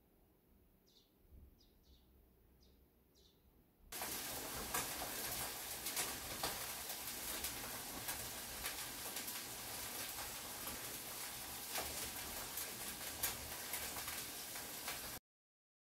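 Faint birds chirping a few times, then suddenly steady rain with crackling patter, which cuts off abruptly near the end.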